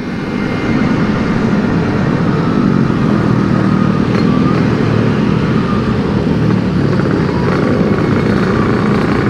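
Yamaha RX-King's 135 cc two-stroke single-cylinder engine running under way through an aftermarket CRC Series exhaust, growing louder over the first second, then holding a steady note.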